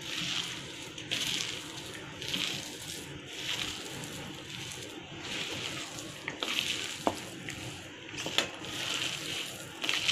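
Bare hands kneading and squishing a moist mash of boiled potato, corn kernels, chopped onion and flours on a plate: soft, wet squelches about once a second. A couple of light clicks come about seven and eight seconds in.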